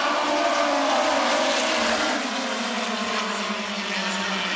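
A pack of USAC midget race cars' four-cylinder engines racing past at speed, several engines at once. Their pitch falls and the sound fades a little as the pack moves away.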